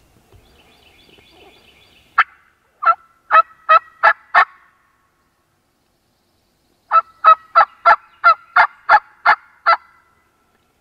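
Hen-turkey yelps on a hunter's turkey call, used to draw in a gobbler: a run of six yelps, a pause, then nine more, each note breaking from high to low. A faint, quick, high rattle sounds just before the first run.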